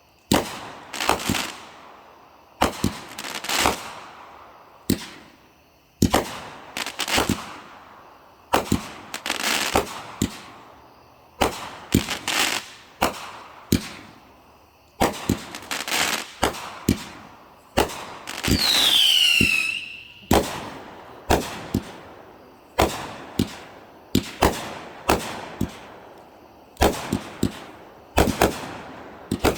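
Consumer fireworks going off: a steady run of sharp bangs, often in quick clusters, every second or so, each trailing off. About two-thirds of the way through, a whistling firework screams, its pitch falling.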